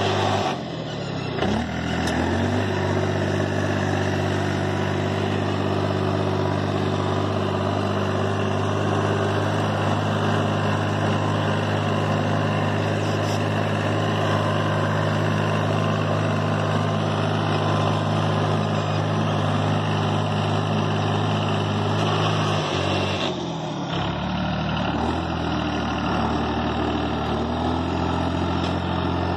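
Compact 4x4 tractor's engine running steadily under load as it pulls a tine cultivator through the soil. The engine note dips and recovers about a second in, and again about three quarters of the way through.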